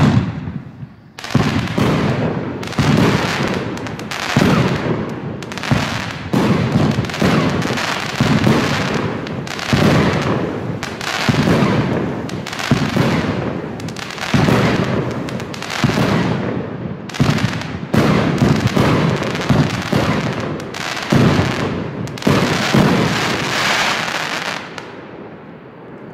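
Funke 'Chrys Rain Variations' firework battery firing shot after shot, roughly one every 0.8 s. Each is a sharp report that dies away over most of a second. The volley fades out near the end.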